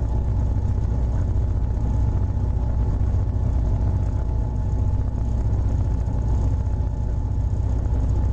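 Train engine running with a steady low rumble and a faint steady whine above it.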